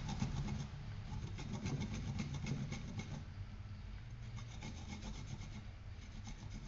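A knob of fresh ginger being rubbed back and forth on a grater in quick, even scraping strokes, louder in the first half and fainter after about three seconds.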